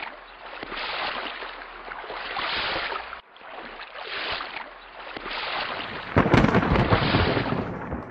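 Thunderstorm: a steady hiss of rain that swells and eases, then a loud rumble of thunder about six seconds in.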